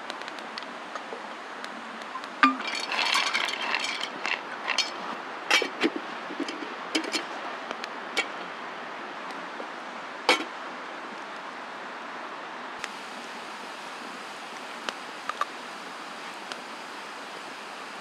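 Wood campfire crackling over a steady hiss, with a cluster of sharp snaps and light clinks between about two and eight seconds in and one loud pop about ten seconds in.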